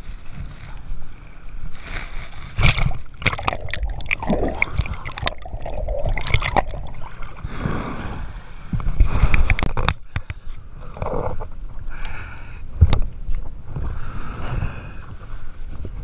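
Swimming strokes splashing and sloshing water close to the microphone, an irregular run of splashes over a rumble of water and wind buffeting the mic.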